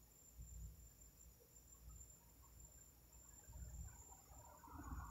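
Near silence with a faint, steady high-pitched trill of crickets and soft low thumps; a faint rough mid-range sound builds near the end.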